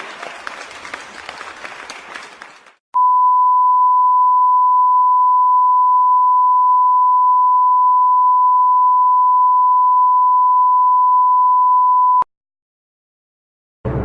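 Applause and crowd noise fading out over the first few seconds, then a censor bleep: one steady, loud, high beep held for about nine seconds that cuts off suddenly.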